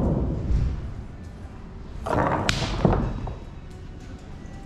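Table shuffleboard puck pushed down the wooden board, a low rumble as it slides, then a thud and two sharp knocks about two and a half seconds in.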